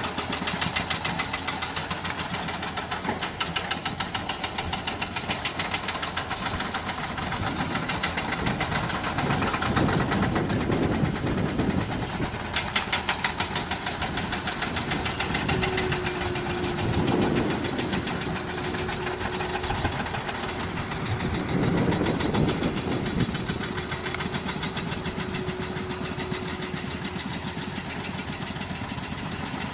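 Heavy diesel engine running with a steady clatter, swelling louder several times, with a steady whine for about ten seconds midway.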